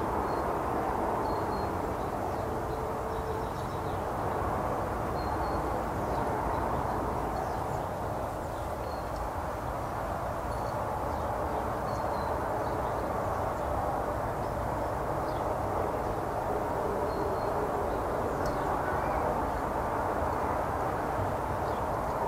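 Garden ambience: a steady low background rumble, with faint brief bird chirps scattered through it.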